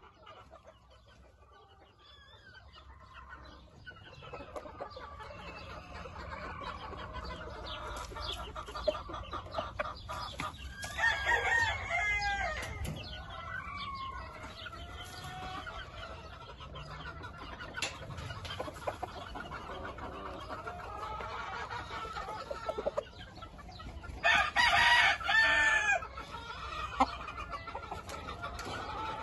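Gamefowl roosters crowing and chickens clucking, many calls overlapping. A louder burst of calls comes about 11 seconds in, and a loud crow of nearly two seconds near the end.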